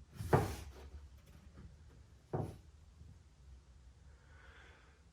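Two short sharp knocks about two seconds apart, the first louder, with quiet room noise between.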